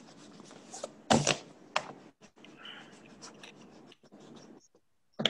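Pencil or crayon scratching on paper as a child colours in a workbook, heard over a video-call microphone, with two sharp knocks about one and nearly two seconds in.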